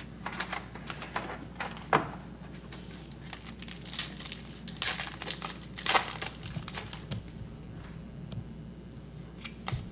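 A 2012 Bowman Signatures football card pack being torn open and its wrapper crinkled, with cards handled and slid against each other. It comes as scattered rustles, sharper about 2, 4, 5 and 6 seconds in.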